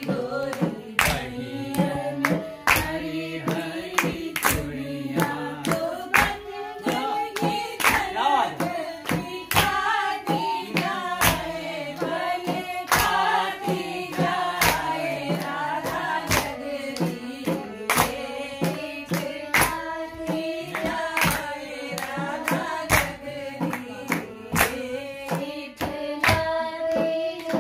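Voices singing a traditional Holi folk song (hori) to a steady rhythm of hand-clapping, with a bamboo flute playing along.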